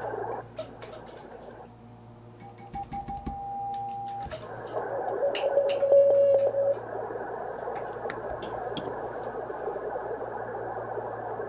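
Receiver hiss from a 23 cm moonbounce station, broken by clicks. The hiss drops out for about two seconds under a steady higher tone. Then the hiss returns, and about a second later a louder, steady lower tone sounds for about a second and a half: the station's own signal coming back as an echo off the Moon.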